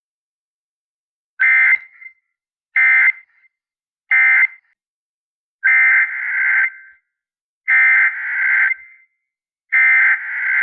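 Emergency Alert System (SAME) digital data bursts, a buzzy two-tone warble. First come three short bursts about a second and a half apart, the end-of-message code closing the previous warning. Then three longer bursts, about a second each, the header code that opens the next alert.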